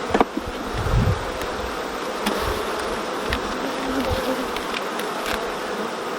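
Honeybees buzzing steadily around an open hive, with a few light clicks and a low bump about a second in.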